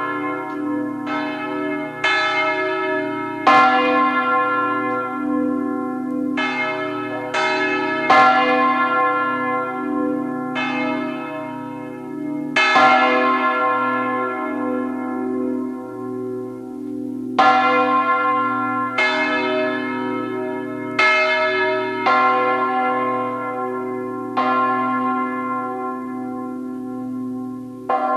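Full peal of an abbey church's bells: several swinging bells striking in an irregular, overlapping sequence, each stroke ringing out and slowly fading over the steady hum of the deeper bells.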